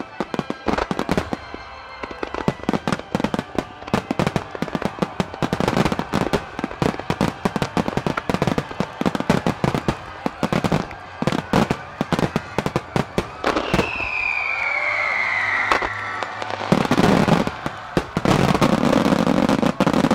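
Fireworks finale: a rapid barrage of aerial shells bursting with sharp, closely spaced bangs. A falling whistle sounds about two-thirds of the way through. The sound turns into a dense, continuous wash for the last few seconds as the big gold bursts go off together.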